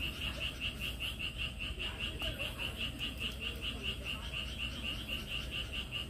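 A steady chorus of a calling animal: a high, even pulsing call repeating about four to five times a second, over a low background rumble.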